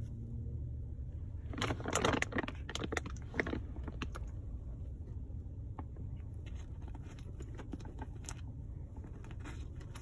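African grey parrot crunching an almond in its beak: a burst of sharp cracks about two seconds in, then lighter scattered clicks of chewing. A steady low car hum runs underneath.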